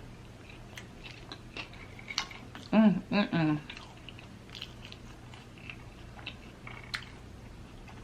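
Close-up chewing of food: scattered small wet mouth clicks, with a short hummed vocal sound about three seconds in.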